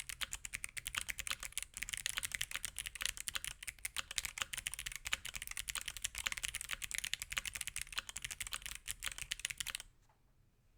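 Fast, continuous typing on a mechanical keyboard with Kailh Box Jade clicky switches and PBT keycaps: a dense stream of sharp, crisp clicks. The typing stops suddenly near the end.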